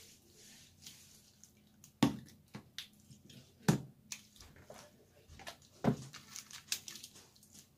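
Wet slime being squeezed and pulled by hand in a plastic bowl: a run of sticky squelches and pops, with three loud ones.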